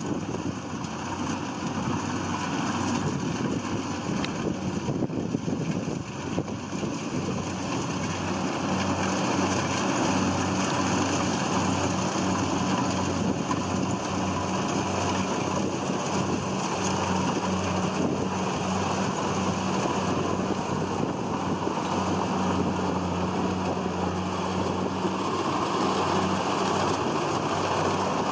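Kubota DC70 Plus rice combine harvester working in the crop: a steady engine hum under the rushing noise of the cutting and threshing machinery, growing louder from about eight seconds in as the machine comes closer.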